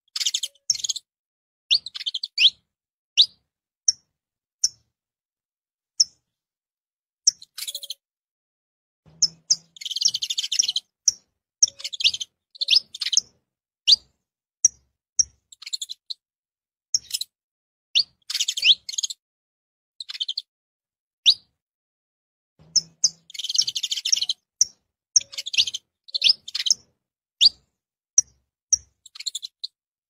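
Saffron finch (canário-da-terra) giving short, sharp, high chirps one after another, breaking into bursts of rapid twittering song about a third of the way in and again about three-quarters of the way through.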